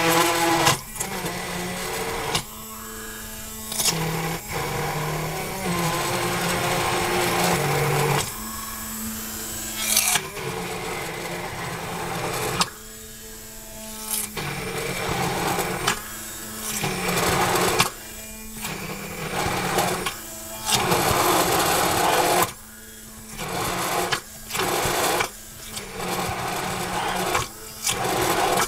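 Handheld immersion blender running in the tall measuring cup, whizzing a thick avocado and yogurt mixture. The motor hums at a steady pitch and is stopped and restarted about ten times, in bursts of one to four seconds.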